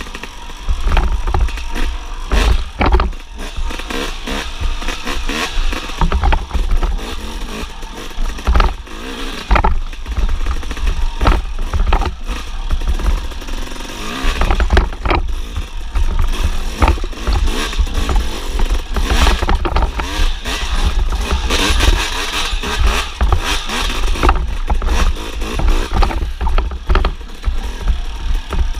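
1999 Suzuki RM250 two-stroke motocross bike being ridden hard along a rough dirt trail: the engine runs under throttle throughout, with frequent knocks and rattles as the bike goes over bumps and rocks.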